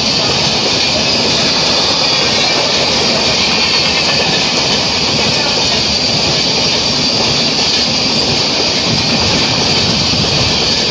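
Indian Railways express train of LHB passenger coaches running past at speed: a steady, loud rush and rumble of wheels on the rails.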